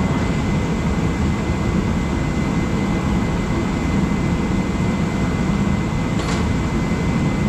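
Steady low mechanical roar of a running machine, with a thin steady high whine over it. A single brief click sounds about six seconds in.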